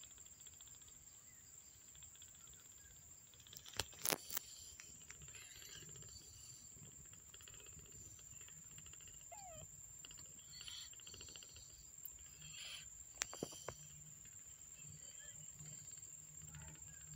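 Near silence: faint room tone with a few soft clicks, the loudest a small cluster about four seconds in and another single click near the end.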